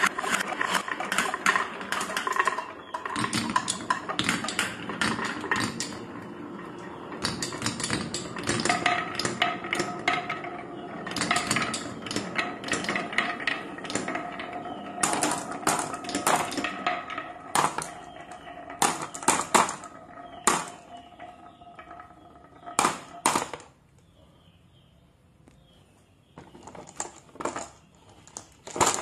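Glass marbles rolling down a wavy wooden marble-run track, clicking and clattering against the wood and against each other in a dense stream of knocks. The clatter thins to a quieter pause about three-quarters of the way through, then a few scattered clicks.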